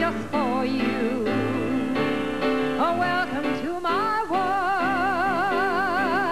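A woman sings into a handheld microphone over instrumental backing. About four seconds in she settles into a long held note with a wide vibrato.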